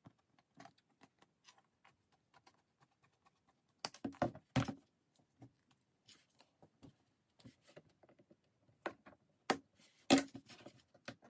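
Scissors snipping a sheet of magnetic foil, with the foil and a fiberboard panel being handled on a desk: scattered small clicks and rustles, with a few louder knocks about four seconds in and again near the end.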